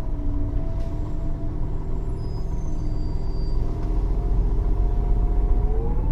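Irisbus Cityclass Cursor CNG city bus under way, its Cursor 8 natural-gas engine and Voith automatic gearbox making a steady whine over a low rumble. The whine rises in pitch near the end as the bus picks up speed.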